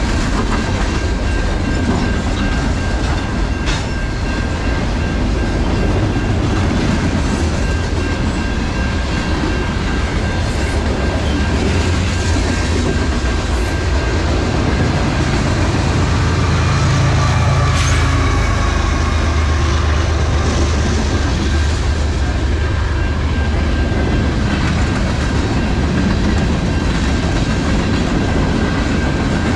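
Long freight train of boxcars, tank cars, hoppers and gondolas rolling past, steel wheels rumbling and clacking steadily over the rail joints.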